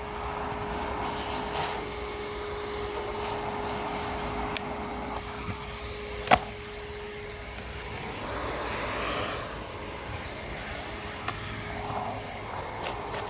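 Miele Complete C2 Tango EcoLine canister vacuum running with a steady hum, scattered small ticks of grit being drawn in, and one sharp click about six seconds in.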